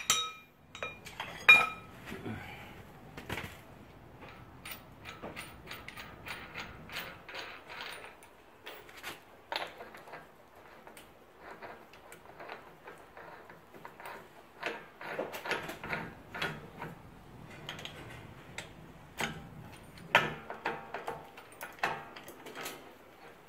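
Hand tools clinking and a ratchet wrench clicking while bolts at a car's front wheel hub are tightened. Irregular metallic clicks throughout, with a sharp metal clank about a second and a half in and busier clusters of clinks later on.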